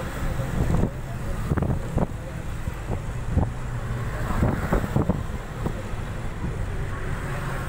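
Inside a moving bus: steady engine and road rumble with wind at the window, broken by irregular knocks and rattles from the bus body.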